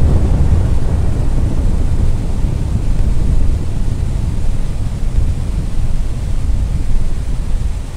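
Low, rumbling tail of an explosion, heavy in the bass and holding fairly steady after the blast.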